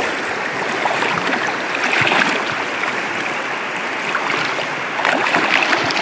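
Shallow river running steadily over stones, briefly louder about two seconds in and again near the end.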